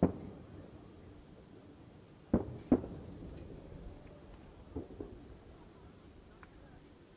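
Large aerial fireworks shells (shakudama, 12-inch) going off in quick succession: sharp booms with a rolling echo. One comes at the start, two close together about two and a half seconds in, and two fainter ones about five seconds in.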